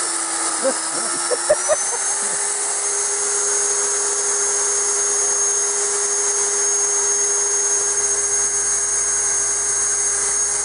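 Hilti DD 130 diamond core drill cutting a core hole into a masonry pillar, its motor whining steadily. A few knocks come in the first two seconds, and the pitch steps up slightly about two seconds in and then holds.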